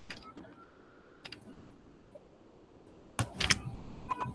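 Quiet room tone broken by a few sharp clicks, with a louder cluster of them about three seconds in.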